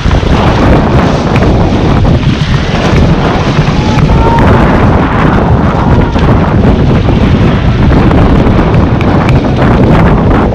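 Loud rushing river water with wind buffeting the microphone.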